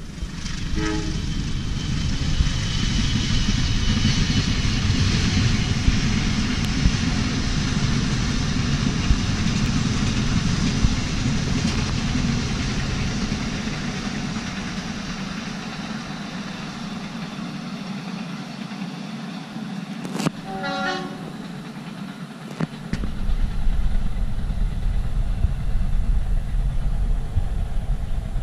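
Kutojaya Utara passenger train, hauled by a diesel locomotive, running past with a steady rumble that swells over the first few seconds and then slowly fades. The locomotive's horn sounds briefly about a second in and again about twenty seconds in. A low engine rumble comes in near the end.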